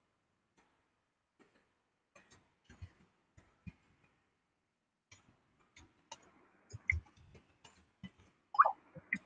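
Faint, scattered light clicks and taps, a few at first and coming closer together in the second half, with a brief louder sound near the end.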